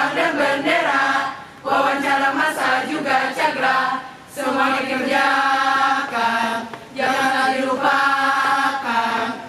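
A group of voices chanting a yel-yel cheer in unison, with sung Indonesian words. It comes in phrases of about two and a half seconds, with short breaks between them.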